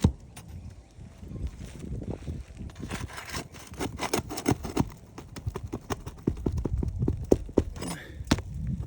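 A metal pry tool working roofing nails out from under shingle tabs: an irregular run of sharp knocks, clicks and scrapes, thickest in the middle of the stretch.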